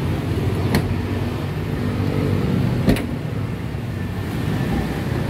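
A vehicle engine runs steadily at idle close by, with two sharp plastic clicks, about a second in and again about three seconds in, as the latch on top of a plastic pet carrier is pressed.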